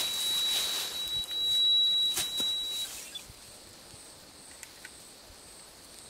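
Rustling and a few knocks of movement through brush in the first couple of seconds, with a steady high thin whine that cuts off about three seconds in; after that only the faint chirring of night insects.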